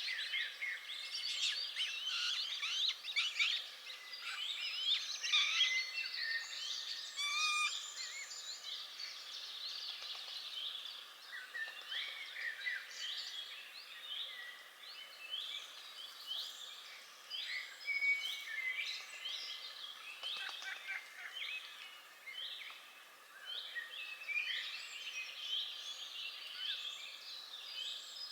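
A chorus of wild birds singing and chirping, with many songs and calls overlapping. From about halfway through, short, similar chirps repeat about once a second.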